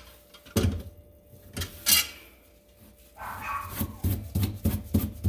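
Channel-lock pliers and a plastic slip nut on a sink drain tailpiece being loosened: sharp clicks and knocks, then a short creak about three seconds in, followed by a quick run of clicks as the nut is turned by hand.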